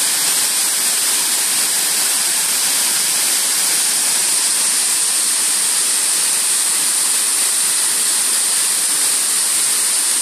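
Waterfall rushing steadily into a pool.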